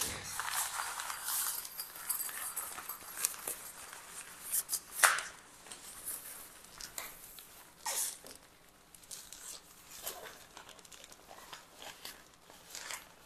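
The black nylon fabric of a folded Godox octabox and its carry bag rustling and swishing as the octabox is pulled out and unfurled, with scattered light clicks from its frame and a sharper click about five seconds in.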